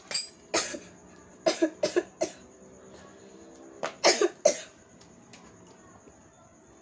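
A person coughing in short bouts: one cough at the start, a run of four about one and a half to two and a half seconds in, and three more around four seconds in.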